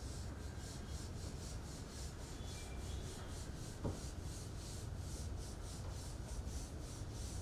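Board duster wiping marker writing off a whiteboard, rubbing back and forth in quick, evenly repeated strokes, with one light knock about four seconds in.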